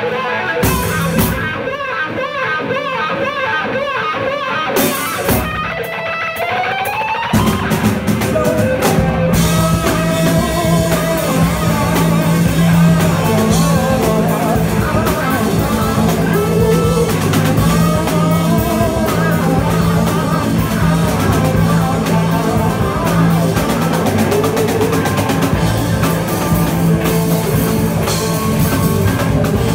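Live rock band jamming. An electric guitar plays over light drums, sliding up in pitch about six seconds in. About seven seconds in, the bass and full drum kit come in and the whole band plays on.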